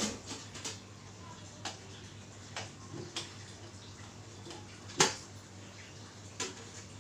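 Light metal clicks and taps from the lid of a large metal stock pot being handled, then one loud clank about five seconds in as the lid is lifted off the boiling pot.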